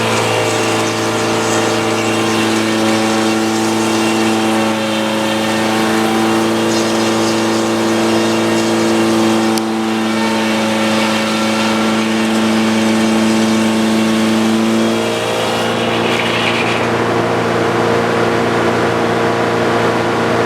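Old Frick sawmill running steadily under power as it works a log, a steady machine hum with several held tones. One of the tones drops out about fifteen seconds in.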